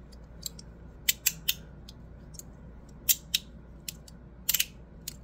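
Brass-framed fidget slider clicking as its tiles are pushed along by thumb: about a dozen short, sharp clicks at an uneven pace.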